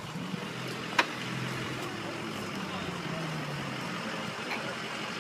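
A 4x4 pickup truck's engine running steadily as it drives across rough ground, with one sharp click about a second in.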